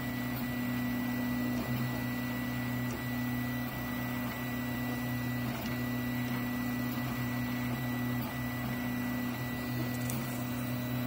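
Largely 3D-printed FDM 3D printer at work: its stepper motors give a steady low two-note hum that dips briefly every half second to a second as the print head changes moves. Under it run the whir of the print-head cooling fan and a faint steady high whine.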